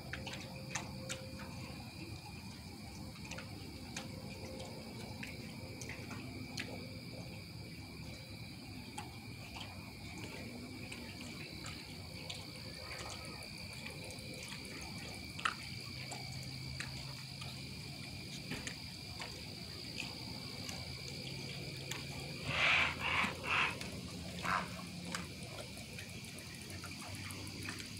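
Steady evening chorus of insects trilling in two unbroken high tones. About 23 seconds in, four louder harsh calls come in quick succession and stand out over the chorus.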